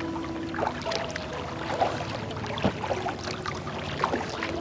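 Kayak paddle strokes on calm lake water: the paddle blades dip and pull, with irregular small splashes and water dripping off the blades between strokes.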